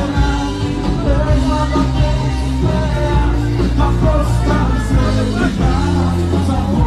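Rock band playing a song, with a singer's voice over bass, guitars and drums.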